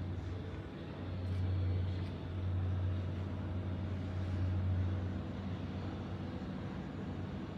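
Low, steady mechanical droning hum, the background hum of a nearly empty airport terminal, swelling a little between about one and five seconds in.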